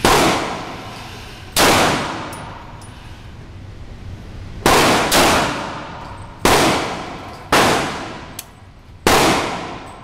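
A 9mm handgun fired seven times at an uneven pace, each shot sharp and followed by a long echoing decay. Faint high metallic pings are heard between some of the shots.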